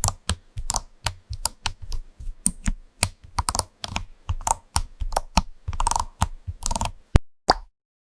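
Keyboard typing on squishy jelly keycaps: rapid, irregular keystrokes, several a second, each a crisp click, some with a soft thud, pausing briefly near the end.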